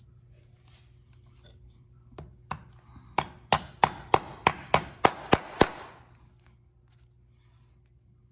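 A hammer striking in a quick series of about eleven sharp blows, roughly three a second, the first two lighter than the rest.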